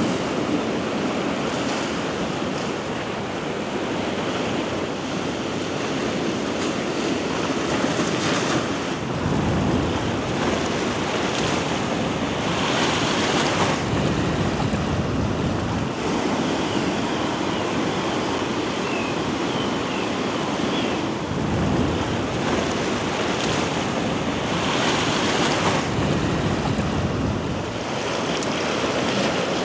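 Sea surf washing in, a steady rush that swells louder every few seconds, with wind rumbling on the microphone.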